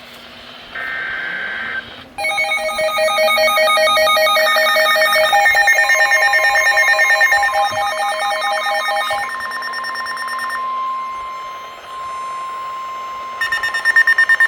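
Emergency Alert System activation ahead of a flash flood warning. It opens with a short burst of digital header data, then a loud electronic alert tone pulsing rapidly, with a steady high tone held under it. It ends in a burst of fast beeping.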